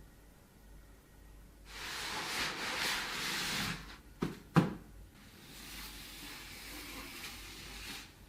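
Rustling handling noise, then two sharp clicks about four seconds in, the second one louder, followed by fainter rustling.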